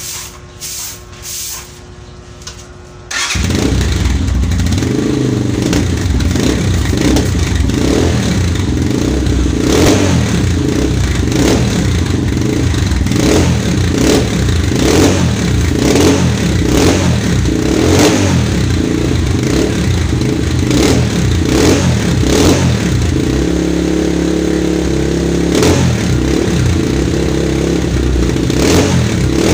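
Rusi KRY150 dirt bike's single-cylinder engine starting about three seconds in, then running with repeated short throttle blips. The exhaust note is through the stock muffler with its internal restriction cut out and the packing redone with steel wool, set up to be open but not too loud.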